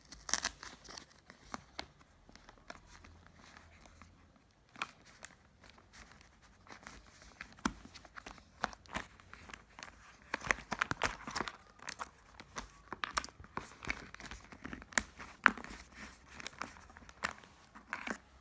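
Product packaging being handled and opened by hand: scattered rustling, crinkling and tearing with small clicks and knocks. It is sparse at first and gets busier from about five seconds in.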